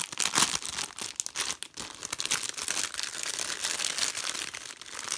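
Clear plastic bag of makeup brushes crinkling and rustling as it is handled and pulled open, with crumpled brown packing paper rustling under it. An unbroken run of fine crackles.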